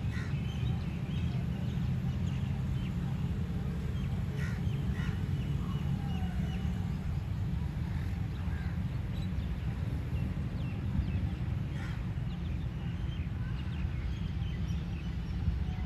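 Scattered short bird calls over a steady low rumble.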